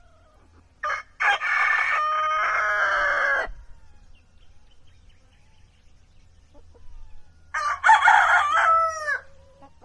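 A rooster crowing twice, about six seconds apart. Each crow is a short lead note followed by a long drawn-out call that bends down in pitch at the end; the second crow is shorter.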